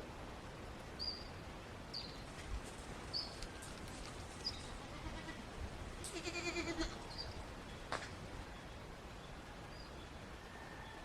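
A goat or sheep bleats once, a wavering call lasting under a second, over a steady outdoor background. Short high bird chirps come every second or so, and there is a single sharp click shortly after the bleat.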